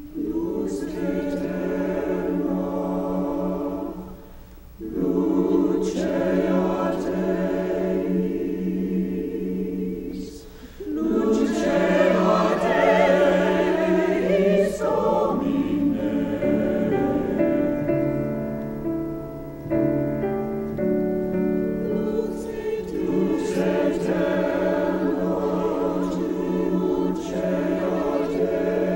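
A choir singing a slow piece of held chords, with short breaks between phrases about four and ten seconds in.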